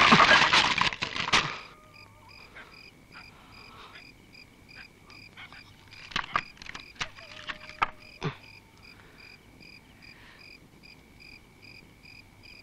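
Dry bamboo fence sticks cracking and snapping loudly for the first second and a half as someone forces through the fence. Then a cricket chirps in a quiet, regular pulsing rhythm, with a few single twig snaps around the middle.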